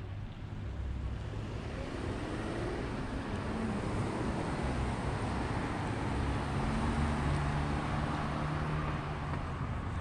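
A car passing on the street: engine and tyre noise building over several seconds, loudest about seven seconds in, then easing slightly.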